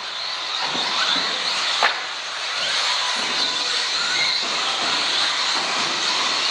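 A pack of electric radio-controlled off-road cars racing on a carpet track, a steady hiss of high-pitched motor whine and tyre noise with whines rising and falling through it. One sharp knock sounds just under two seconds in.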